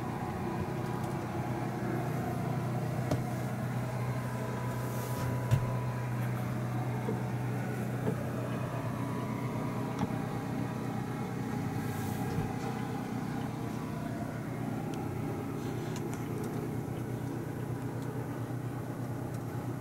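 Steady low mechanical hum with a few faint ticks and knocks.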